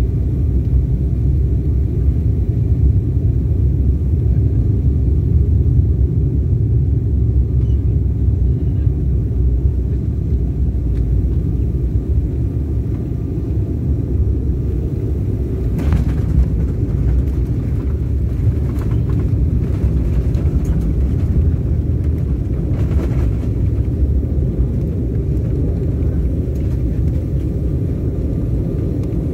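Cabin noise of a jet airliner landing, heard from inside by a window seat: a loud, steady low rumble of engines and rushing air that carries on through touchdown and the roll-out on the runway, with a few faint knocks about halfway through.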